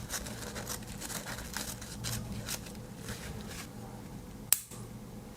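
The tiny scissors of a Victorinox MiniChamp Alox Swiss Army knife snipping paper, a run of small clicks and cuts, with one sharper click about four and a half seconds in.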